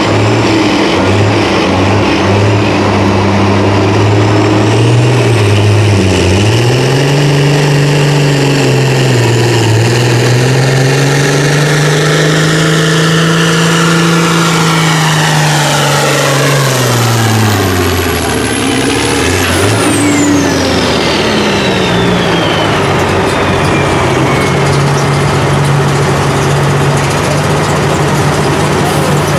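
Semi truck's turbocharged diesel engine under full load in a truck pull. The revs climb, dip briefly about six seconds in, and hold high under a high turbo whistle. Around eighteen seconds in the revs drop and the whistle winds down, and the engine settles to a steady idle.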